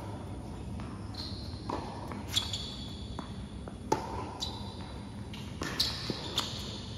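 Tennis rally on a hard court: rackets striking the ball and the ball bouncing, the sharpest hit about four seconds in. Short high squeaks from tennis shoes on the court come between the strokes.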